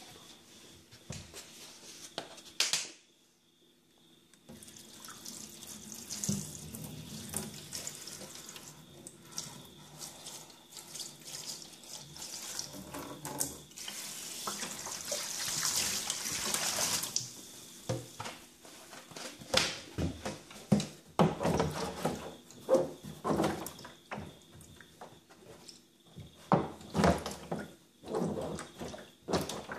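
Vinegar pouring in a steady stream into a plastic tub over a saw blade, filling a rust-removal bath. It grows louder toward the middle and stops about 18 seconds in, followed by a run of knocks and clatters as the blade is handled in the tub.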